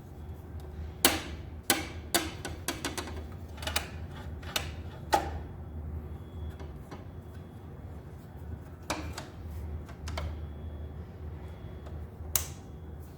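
Irregular sharp clicks and taps from small model parts being handled and set down on a workbench, bunched in the first five seconds with a few more later, over a steady low hum.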